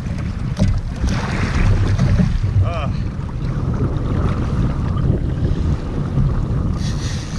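Strong wind buffeting the microphone over a choppy sea, with waves washing around the kayak.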